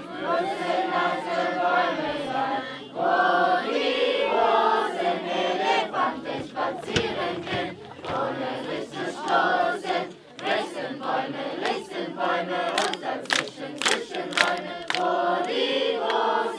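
A large group of children and adults singing together as a choir, with a run of sharp claps in the last few seconds.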